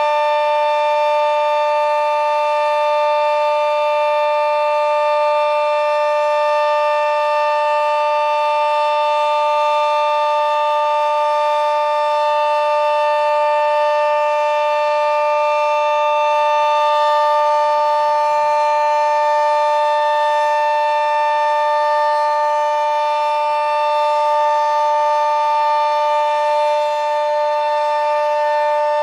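Sentry 40V2T two-tone omnidirectional warning siren sounding its Full Alert signal, very loud. It holds a steady two-note chord without wailing up and down.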